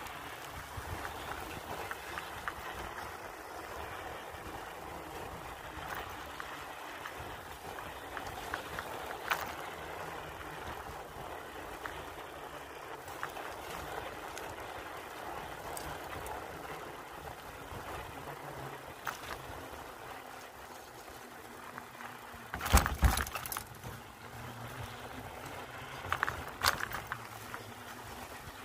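Bicycle tyres rolling over the wooden deck boards of a floating dock: a steady rolling rumble with light clicks. A cluster of loud clattering knocks comes about two-thirds of the way through and another near the end, as the wheels cross joints between dock sections.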